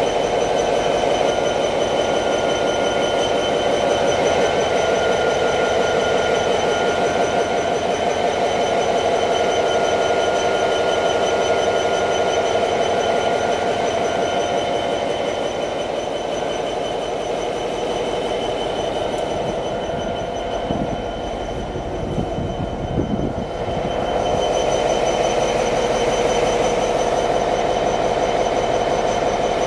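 Diesel locomotive engine running steadily, with a rapid even throb and a steady high whine over it. About twenty seconds in the sound dips briefly and a few low thumps come through before the engine sound returns to full.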